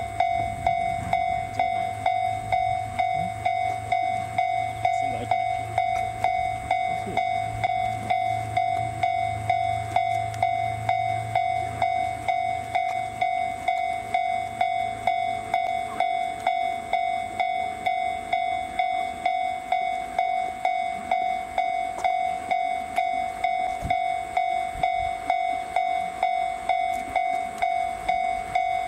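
Railway level-crossing warning bell ringing steadily, about two strokes a second. Beneath it runs a low train rumble that fades away about twelve seconds in.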